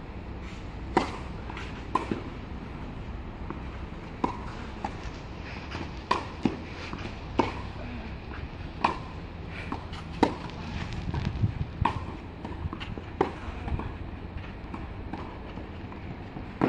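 Tennis rally on a clay court: sharp pops of rackets striking the ball and softer thuds of the ball bouncing, irregular but roughly one a second. Under them is a low rumble of wind on the microphone.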